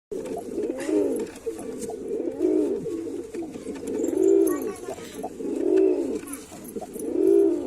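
Male pigeon cooing over and over: a low rising-and-falling coo about every second and a half, five in all.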